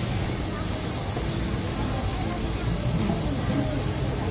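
Food sizzling steadily on a hot teppanyaki iron griddle, with faint voices underneath.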